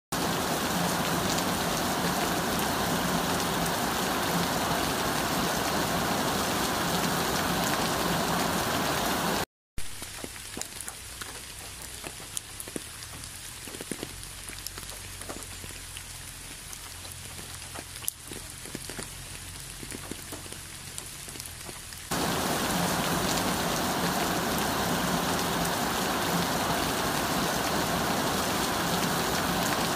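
Steady rain pattering on an umbrella canopy. About ten seconds in there is a brief dropout, and the sound changes to quieter rain with separate drops splashing on wet floor tiles. About twenty-two seconds in, the louder, even rain on the umbrella returns.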